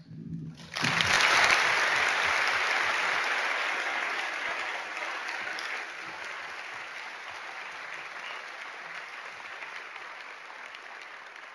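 Audience applauding, starting about a second in, loudest at first and slowly dying away.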